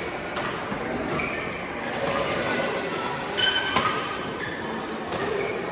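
Badminton rally in a large sports hall: sharp racket hits on the shuttlecock, the loudest pair about three and a half seconds in, with brief squeaks of shoes on the court floor and echo from the hall.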